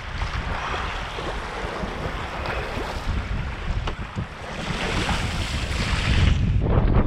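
Strong wind buffeting the microphone over rough sea, with waves and rushing water. The rushing swells louder in the second half.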